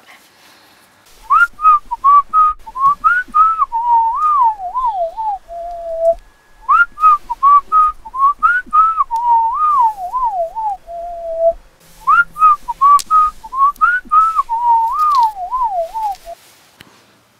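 A whistled tune: the same short melody is whistled three times over, each phrase ending on a held low note.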